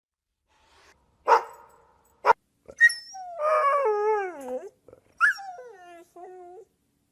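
A dog gives three short, sharp calls, then howls twice. The first howl is long and wavering and falls in pitch; the second is shorter.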